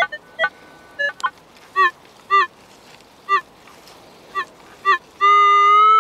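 Metal detector giving its target signal: short electronic beeps as the coil sweeps back and forth over a buried target, then a steady held tone for the last second or so.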